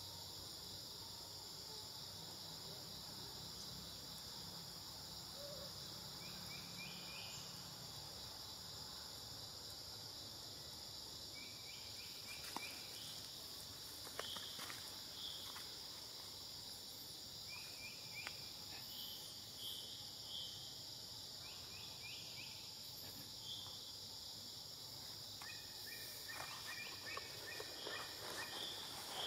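Steady high-pitched chorus of forest insects, with short high chirps now and then and a few light clicks near the end.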